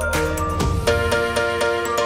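Background music with a steady beat and chiming electronic notes; a low note slides downward about half a second in.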